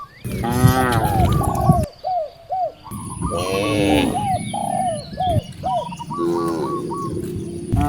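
Cows mooing, three long calls that rise and fall in pitch, with a bird calling over and between them in short, quickly repeated notes.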